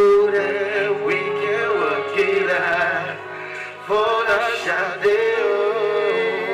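A man singing into a microphone over a backing track of held chords, his voice bending and wavering through drawn-out runs.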